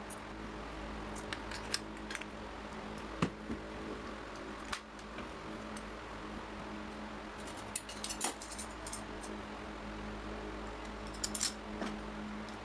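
Scattered light metallic clicks and clinks of small metal parts or tools being handled, busiest about eight seconds in and again near the end, over a steady low electrical hum.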